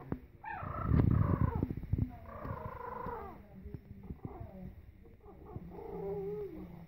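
Young puppies vocalising: several high, squeaky whines and yips that fall in pitch. A loud low thump comes about a second in.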